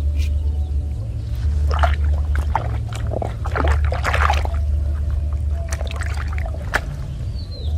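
Water splashing and pouring in irregular bursts, loudest between about two and five seconds in, over a steady low rumble.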